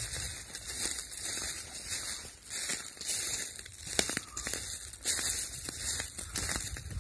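Footsteps crunching through a thick layer of dry fallen leaves on a woodland trail, at a steady walking pace of about one step a second, with one sharper crack about four seconds in.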